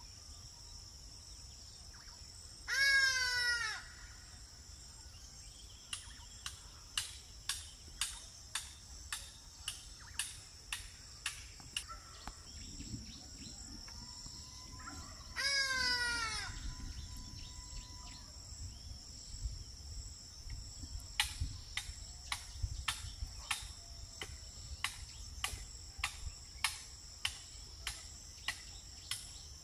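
An ibis gives two loud falling cries, each about a second long and some twelve seconds apart, over a steady high insect buzz. Runs of short sharp ticks, about two a second, come between and after the calls.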